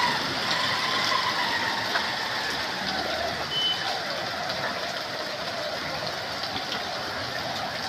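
Motorcycle engine running as the bike rides through floodwater on a street, over a steady hiss of water.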